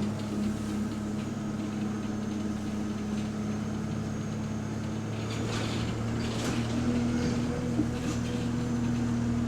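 Bus engine running steadily, heard from inside the passenger cabin as a low, even hum with a faint high whine over it. A few brief rattles come through between about five and eight seconds in.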